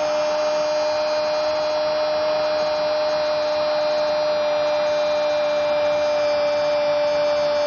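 A football TV commentator's long drawn-out '¡gooool!' cry, held on one steady note, over background noise.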